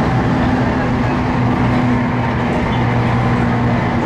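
Running noise of a JR Kyushu 811 series electric train inside motor car KuMoHa 810-1, with its self-ventilated traction motors humming at a steady pitch.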